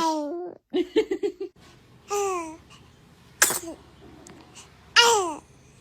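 A newborn baby's small, high-pitched sneezes: one at the start and two more about three and a half and five seconds in, each a sharp burst trailing off in a falling squeak. Between them come a quick run of short vocal sounds and a brief falling coo.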